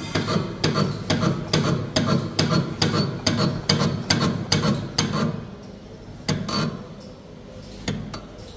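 Rotary microtome's metal mechanism being worked by hand: a fast, even run of scraping clicks, about three or four a second, that stops about five seconds in. A few single clicks follow.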